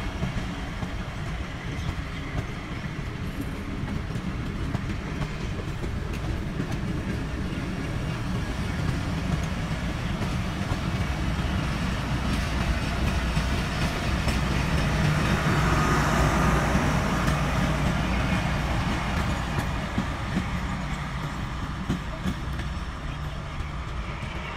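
Pakistan Railways passenger coaches rolling along the track, a steady rumble of wheels on rail with light clacking over the rail joints. It grows louder to a peak about two-thirds of the way through, then fades as the last coach draws away.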